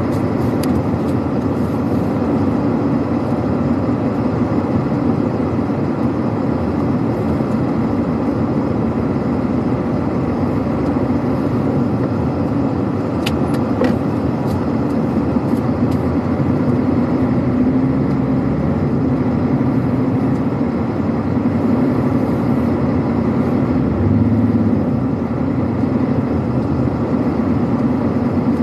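Truck's diesel engine running steadily while driving, a constant low drone.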